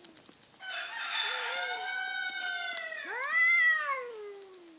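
Domestic cats yowling in a standoff before a fight: a long drawn-out wail starting about half a second in, then a louder wail that rises and falls away near the end.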